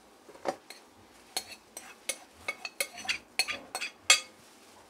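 A metal spoon scraping ground beef off a plate into a stainless steel mixing bowl: a dozen or so irregular clinks and taps of spoon against plate and bowl, the loudest near the end.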